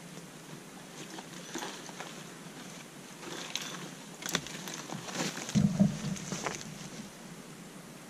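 Footsteps through dry leaves and brush, with branches rustling and twigs cracking as a person pushes through undergrowth. The loudest moment is a brief low thump about five and a half seconds in.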